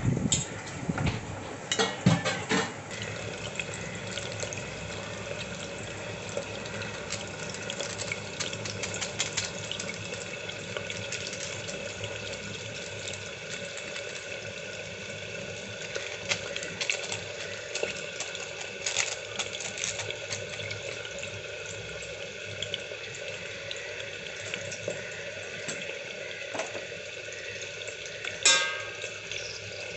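Water boiling steadily in a stainless-steel pot of Maggi noodles. A fork scrapes and clinks against the pot several times in the first few seconds and knocks against it once near the end.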